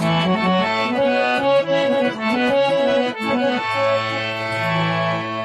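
Instrumental interlude of a folk song on a free-reed keyboard instrument, accordion-like: a melody in held notes, with steady low bass notes entering over halfway through.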